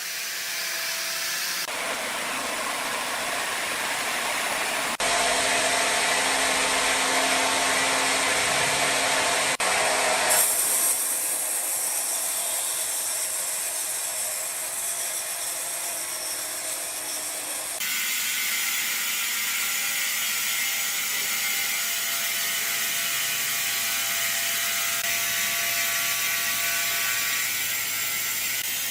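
Woodworking plant machinery running steadily with a mechanical clatter. The sound changes suddenly several times, each part steady in between.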